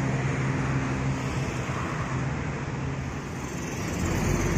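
Diesel engine of a coach bus running steadily among passing road traffic; about four seconds in, a deeper engine sound builds and grows louder as the bus starts to move off.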